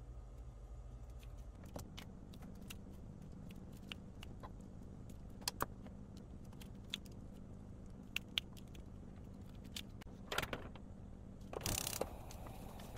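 Metal kitchen tongs clicking and clinking as cooked chicken is pulled apart over a frying pan, with a steady low hum underneath. Two short scraping, rustling bursts come near the end as pieces drop into the pan.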